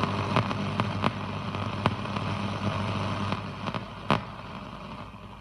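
National RX-C53D boombox's radio on the shortwave 2 band, receiving no station: a steady buzz and hiss of static with a few sharp crackles, getting quieter near the end.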